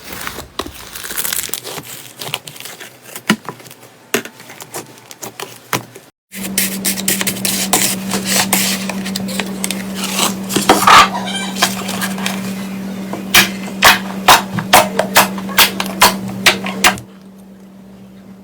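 Slime being squeezed and pressed by hand, with crackling, sticky clicks and air-pocket pops. A cut about six seconds in brings a second clip with a steady low hum under the handling and a quick run of loud pops near the end.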